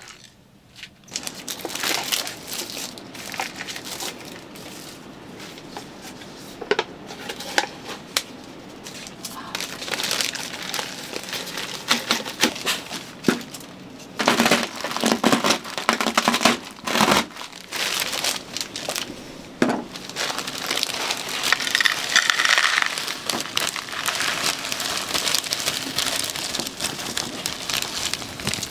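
Plastic food packaging crinkling and being crushed, with scattered clicks and knocks that come and go irregularly.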